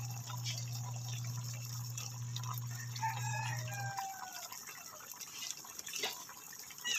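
Coconut milk simmering in a pan with faint bubbling clicks, under a steady low hum that stops about four seconds in. A rooster crows about three seconds in.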